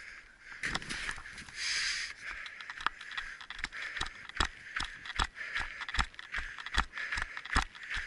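Footsteps at a steady pace, the strongest falling about every 0.8 s with lighter ones between, over a rustling hiss.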